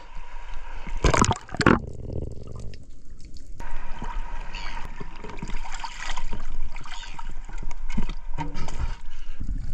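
Sea water splashing and sloshing close to the microphone, with two loud sharp hits about a second in.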